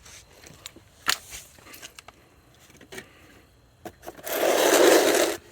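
A few light knocks, then a loud scrape about a second long near the end, as a hydraulic jack is moved into place under the car's jack point.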